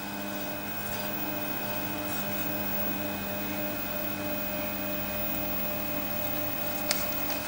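Variac (variable autotransformer) humming steadily under a filament-lamp load as its knob is turned up, a low electrical hum made of several steady tones. Two faint clicks near the end.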